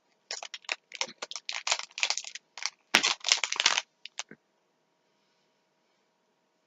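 Plastic snack-bar wrapper crinkling and rustling in a rapid run of short bursts, with one sharp click about three seconds in, stopping after about four seconds.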